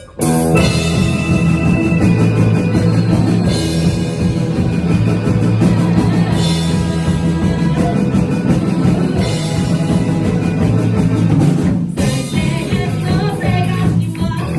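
Live rock band with drum kit, electric guitars and bass playing a loud song intro, kicking in all at once right at the start, with a short break about 12 seconds in before the full band comes back in.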